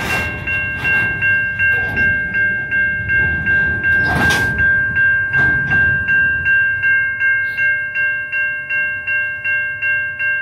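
Safetran Type 3 electronic crossing bell ringing steadily, about three strikes a second, over the low rumble of coal train hopper cars rolling slowly through the crossing. A brief rush of rail noise comes about four seconds in.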